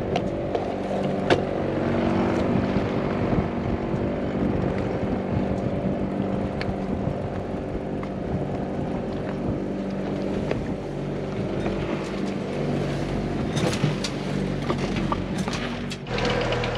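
Boat motor running steadily while trolling, with a few small clicks and knocks; the sound changes abruptly to a different steady hum just before the end.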